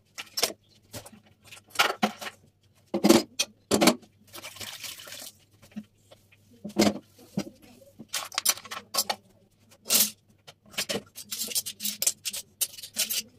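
Irregular knocks and clatter of kitchen things being handled and set down on the counter, with a short hissing rub about four seconds in, over a faint steady low hum.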